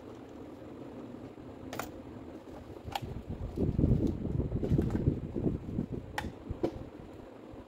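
Parts of a dismantled rotary hammer being handled with gloved hands: a few sharp metal clicks and knocks as the metal tube and housing meet, with glove rubbing and rustling against the parts in the middle.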